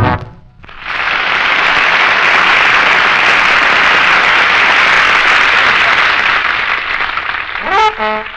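Studio audience applauding steadily for about seven seconds. A brass band's horns come back in near the end.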